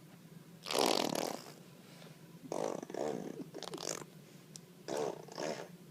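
Imitation fart noises made by a person: about five short sputtering blurts, the first one, about a second in, the longest and loudest.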